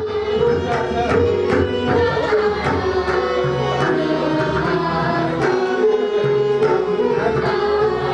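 A group of students singing Odissi classical music, accompanied by regular hand-drum strokes.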